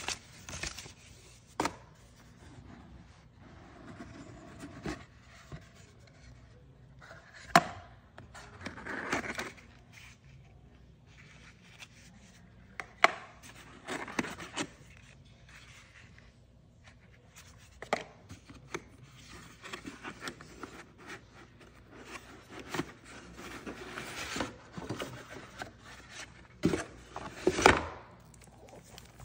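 Cardboard gift box and paper packaging being handled: rustling, rubbing and scraping, broken by several sharp taps and knocks of card against card, the loudest cluster near the end.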